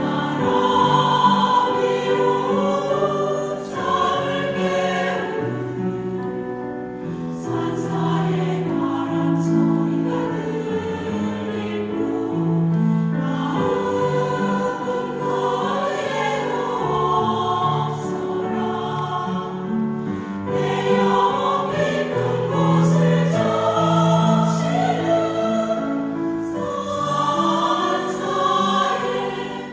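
Mixed choir singing a Korean Buddhist choral song in sustained, flowing phrases.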